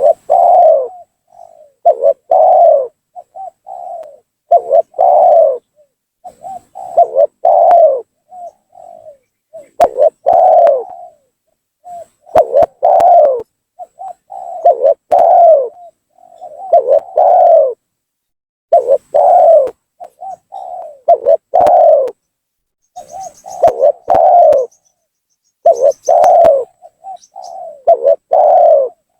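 Spotted dove (tekukur) cooing over and over in loud phrases, each a few short low notes leading into a stronger coo, repeating about every two seconds. This is a gacor lure call, the kind used to provoke rival doves and draw them down.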